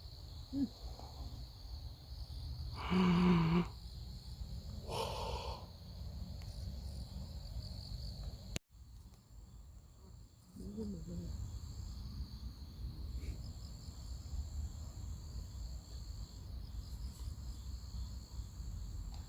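Steady high-pitched chorus of forest insects over a low rumble. A short low vocal sound comes about three seconds in, and a breathy sound a couple of seconds later. Past the middle the sound drops away abruptly for about two seconds, then the chorus returns.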